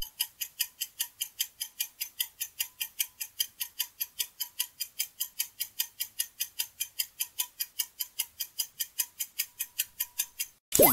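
Clock-ticking countdown sound effect: rapid, even ticks, about five a second, marking a 10-second quiz timer. A loud whoosh comes right at the end as the time runs out.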